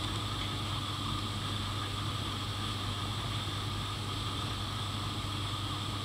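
Steady low hum with an even hiss and no distinct events: room tone.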